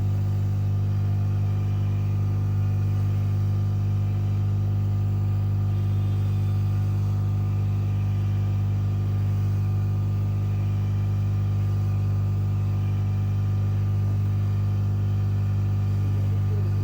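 Hot-air heat gun running steadily, a constant low motor hum with steady overtones, as it heats the phone's back panel to loosen it for opening.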